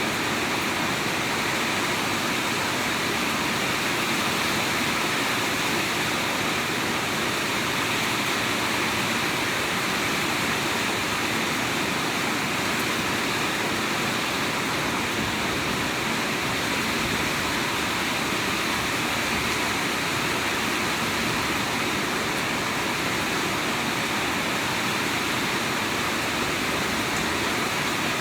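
Steady heavy rainfall, a dense, even hiss with no breaks.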